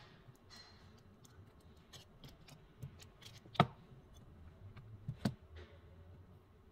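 Small clicks and taps of a phone frame and repair tools being handled and set down on a silicone repair mat, with two sharper knocks about three and a half and five seconds in.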